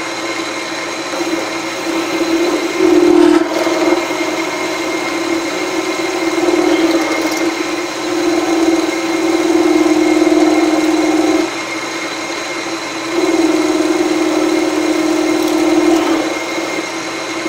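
Milling machine spindle running with a 3/8 inch end mill cutting a counterbore. A steady hum and whine, with louder spells of cutting about 3, 8 and 13 seconds in as the quill is fed down and the cutter engages.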